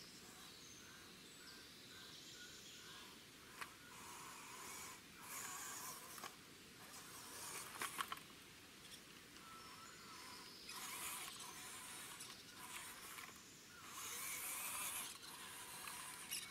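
Faint, intermittent whirring and scraping from a homemade RC Humvee crawler with a 370-size electric motor as it crawls down over roots and dirt, coming in bursts with a few sharp clicks.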